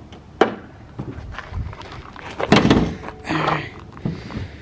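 Carbon-fiber car hood being lowered and pushed shut by hand: a sharp click about half a second in, then a heavy thunk about halfway through as the hood comes down.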